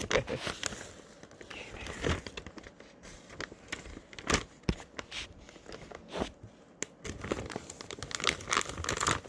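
Plastic vacuum-sealer bag crinkling and rustling as it is handled and filled with food, with scattered sharp crackles and taps, the loudest a little past four seconds in.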